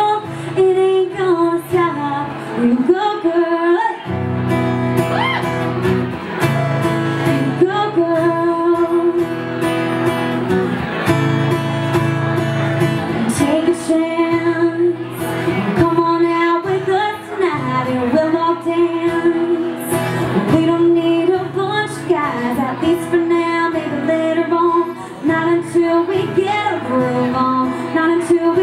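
A woman singing a song with acoustic guitar accompaniment. Lower notes fill in about four seconds in.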